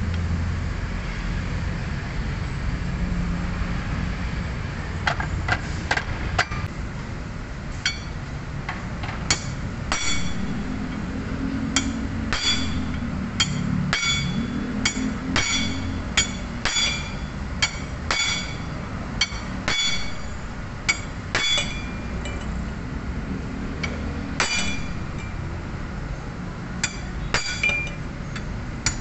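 A long series of hammer strikes with a metallic ring, about one or two a second, starting about five seconds in. The blows drive a newly fitted oil seal deeper into a steering rack housing until it seats.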